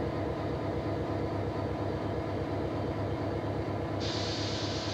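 Diesel locomotive engine running with a steady low rumble inside the cab. About four seconds in, a burst of hiss joins as the cab radio's squelch opens on an incoming call.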